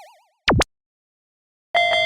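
Cartoon sound effects: a wobbling boing fades out, then a quick swooping bloop drops and rises in pitch. Near the end a pulsed electronic level-crossing bell tone starts, beating about six times a second.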